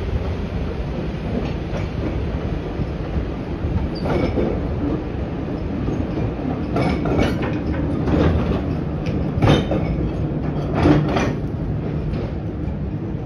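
Loaded narrow-gauge coal wagons rolling past, their wheels clicking and clanking over the rail joints several times. Underneath runs the low, steady rumble of the Baguley-Drewry diesel hauling them.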